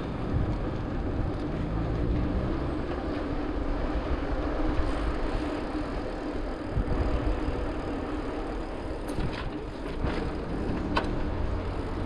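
Mountain bike rolling along an asphalt street: steady tyre and riding noise with wind rumbling on the microphone, and a few sharp ticks about nine to eleven seconds in.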